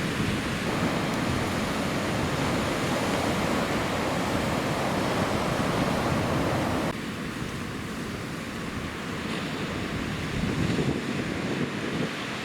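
Ocean surf washing and breaking, with wind buffeting the microphone. The sound drops and changes abruptly about seven seconds in.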